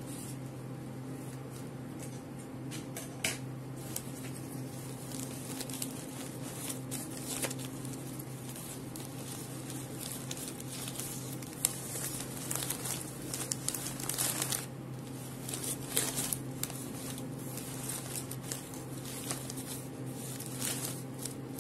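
Ribbon and bouquet wrapping paper rustling and crinkling in short irregular bursts as ribbon loops are added to a bow by hand, over a steady low hum.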